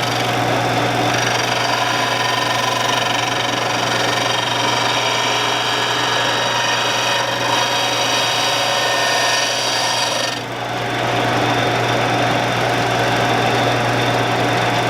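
A Shopsmith running as a grinder while a steel lathe roughing gouge is ground to a new bevel: a steady motor hum under a continuous gritty grinding hiss. The grinding drops out briefly about ten seconds in as the tool comes off the wheel, then resumes.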